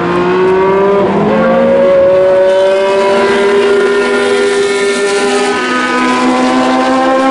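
Cooper-Maserati T86's Maserati V12 engine running at speed on the track, a loud multi-note engine note whose pitch shifts about a second in and again past five seconds as the car goes through the corner and away.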